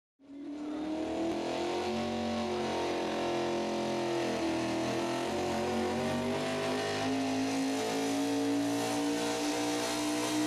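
Modified four-wheel-drive pulling truck's engine running hard under full load as it drags a weight-transfer sled, cutting in abruptly just after the start. Its pitch wavers and rises a little in the second half.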